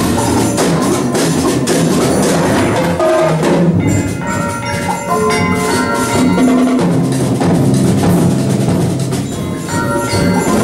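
Percussion ensemble playing: marimbas and other mallet instruments in fast, dense strokes, with tubular bells ringing over low pitched notes.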